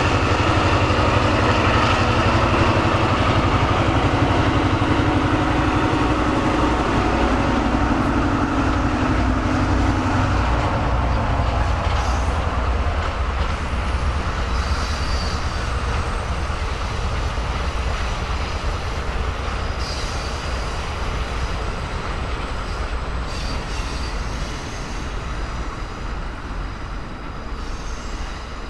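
EMD GP38-2 diesel locomotive running past with a steady engine drone for about the first ten seconds. Then passenger coaches roll by with steady wheel-on-rail noise and a few brief wheel squeals, the sound slowly fading as the train moves away.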